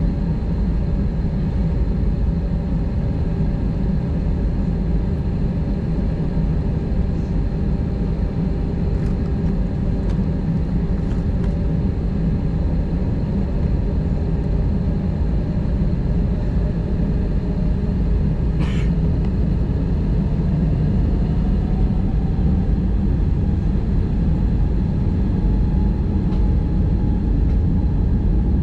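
Airbus A320-232's two IAE V2500 turbofans running at idle during taxi, heard from inside the cabin as a steady low rumble with a hum of steady tones over it. One tone climbs slowly in pitch in the second half, and there is a single short tick about two-thirds of the way through.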